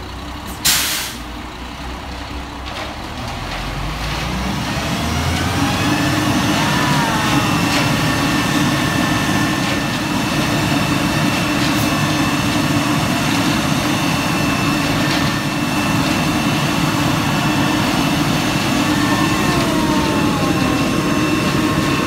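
Concrete mixer truck: a short hiss of its air brakes about a second in. From about four seconds the diesel engine revs up and holds a steady, heavy rumble as the drum turns to mix the load before the pour.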